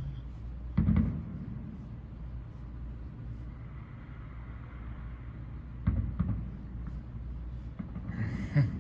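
Distant fireworks booming: two deep thumps, one about a second in and another near six seconds, over a steady low outdoor rumble.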